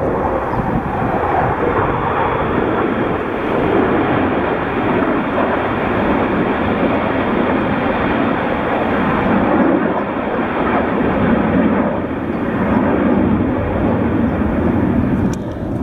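Formation of Red Arrows jet aircraft flying past: a loud, steady jet roar that swells and eases gently a few times.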